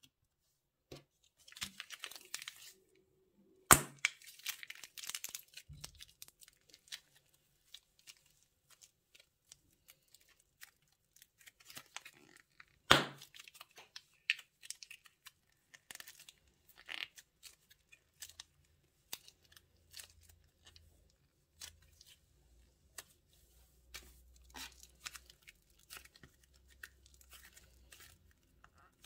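Plastic bags crinkling and being torn, an irregular crackle of rustles and small clicks with two loud sharp snaps, about four seconds and thirteen seconds in.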